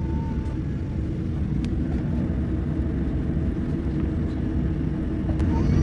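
Steady low rumble of a Boeing 787 airliner's cabin on the ground, engines running as it starts to taxi, with a faint steady hum and a few faint clicks.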